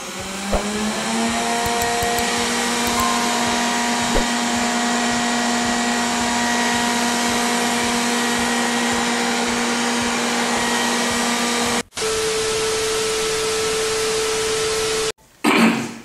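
Xiaomi Roborock robot vacuum starting up for a test run after the repair: its suction fan spins up, rising in pitch over the first second, then runs steadily with a high whine over a loud rush of air. It breaks off for a moment near the end and goes on at a different pitch, and a short loud sound comes just before the end.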